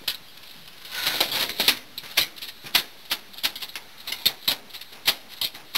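Freshly landed Atlantic halibut thrashing on a metal diamond-plate boat deck: irregular sharp slaps and taps, a close cluster about a second in, then a few every second.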